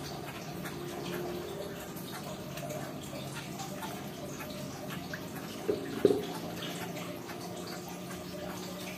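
Steady trickle of running water, with two short sharp knocks close together about six seconds in.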